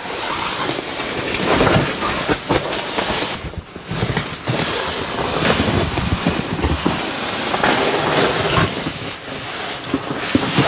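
Scuffs, rustles and irregular knocks of someone moving through a narrow granite crevice, over a steady rumbling noise.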